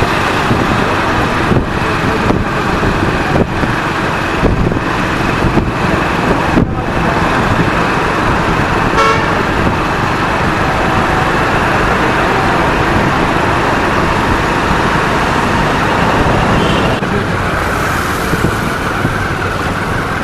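Loud, steady road traffic noise, with a vehicle horn tooting briefly about nine seconds in.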